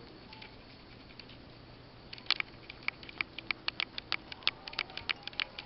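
Rabbit chewing fresh leafy greens: faint at first, then from about two seconds in a fast run of crisp crunching clicks, several a second.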